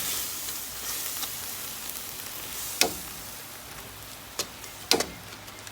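Shredded beef and chile-tomato sauce sizzling in a frying pan as it is stirred, the hiss slowly dying down, with a utensil knocking against the pan three times in the second half.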